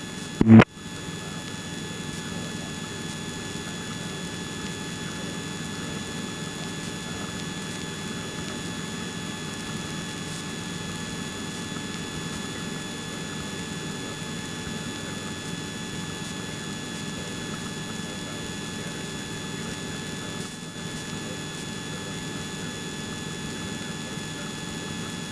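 Small helicopter in flight, its engine and rotor noise a steady, even drone inside the cabin with faint steady whine tones above it. A short loud blip about half a second in.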